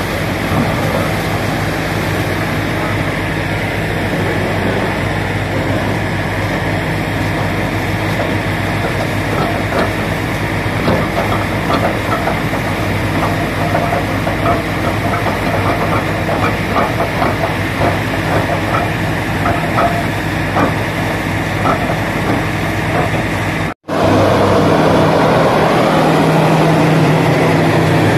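Truck-mounted borewell drilling rig running with its air compressor while it drills: a steady engine hum with compressed air blasting water and cuttings out of the hole, and irregular knocks through the middle. Near the end the sound cuts and comes back as a louder, steadier hum of the compressor unit heard up close.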